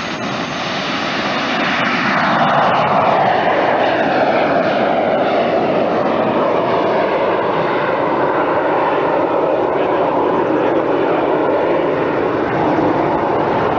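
Airplane engine running loud as the plane flies a low pass, its pitch dropping as it goes by about two seconds in, then a steady drone.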